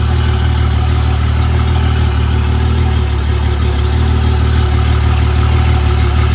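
Honda 250 hp fuel-injected V6 outboard engine idling steadily, with a strong even low hum.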